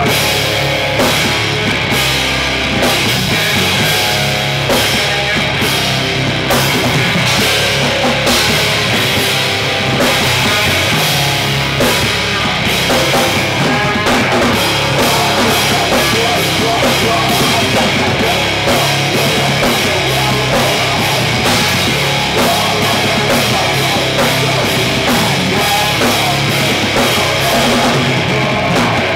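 Hardcore punk band playing live: loud distorted electric guitars, bass guitar and a fast-struck drum kit, with vocals into the microphone.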